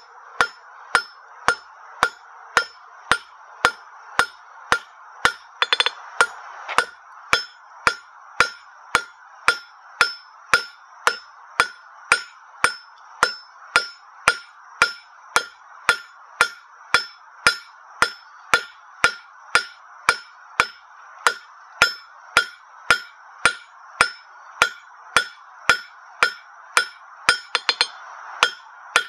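Hand hammer striking the red-hot end of a half-inch square steel bar on an anvil, steadily at about two blows a second, each blow ringing off the anvil. It is forging the bar's end round. Near the end comes a quick flurry of lighter taps.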